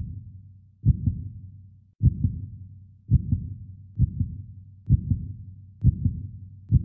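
Heartbeat sound effect: low double thumps, lub-dub, about once a second, over a faint low hum.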